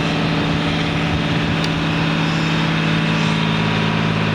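Mekong slow boat's engine running steadily at high throttle through a rapids pass, a deep, even drone with water and wind noise over it.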